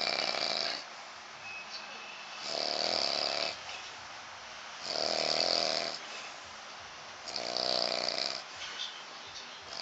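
A man snoring in a steady rhythm: four snores, each lasting about a second, one about every two and a half seconds.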